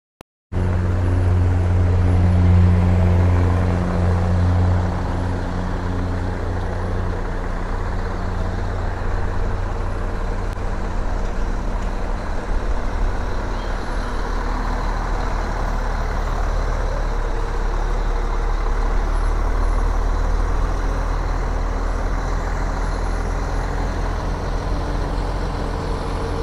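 Heavy Mercedes-Benz truck's diesel engine running as the loaded truck manoeuvres and pulls away slowly; a deep engine note, loudest for the first few seconds, then a steady rumble.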